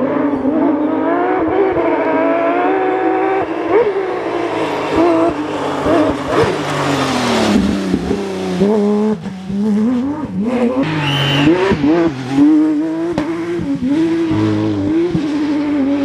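Porsche 911 GT3 RS RGT rally car's naturally aspirated flat-six revving hard, its pitch climbing through the gears and dropping sharply on downshifts and braking. A brief high squeal comes about eleven seconds in.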